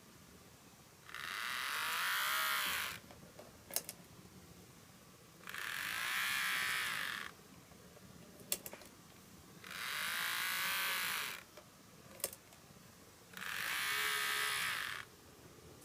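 Motor and gears of a KATO N-gauge KiHa 25-1000 powered railcar model running quite noisily in four short runs of about two seconds each, the whine rising in pitch as it speeds up and falling as it slows. A sharp click comes between runs.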